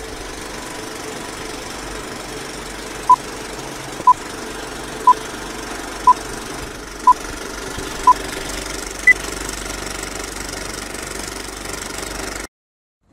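Old-film countdown sound effect: a film projector's steady rattling run, with a short beep once a second six times, then one higher-pitched beep. The sound cuts off suddenly near the end.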